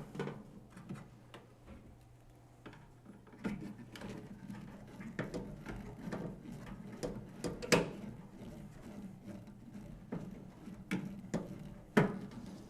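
A long screwdriver working screws out of a microwave's power-supply board, making irregular small clicks and knocks of metal on metal, with sharper knocks about eight seconds in and near the end.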